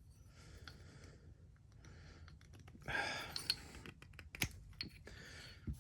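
Faint handling of a plastic puzzle-box prop replica: scattered light clicks and knocks with soft rustling, the loudest rustle about three seconds in, as the pieces are fitted back together.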